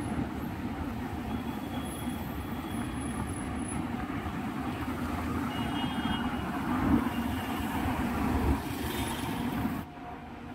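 Road traffic: vehicles running close by in a steady low rumble, which drops off suddenly near the end.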